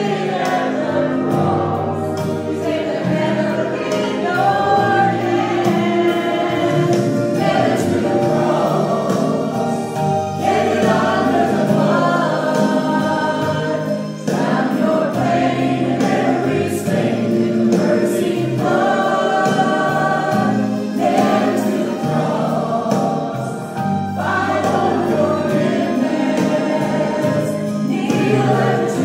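A choir singing a gospel hymn with musical accompaniment, in phrases of a few seconds each.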